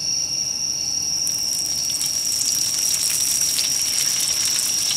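Breadcrumb-coated skewered onion (kushikatsu) deep-frying in hot oil: a crackling sizzle that starts about a second in and grows denser. A steady high insect trill runs under it.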